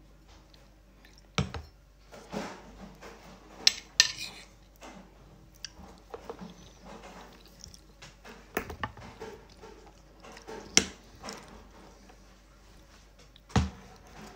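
Metal cutlery clinking and scraping against a ceramic dinner plate while eating, in scattered sharp taps a second or two apart.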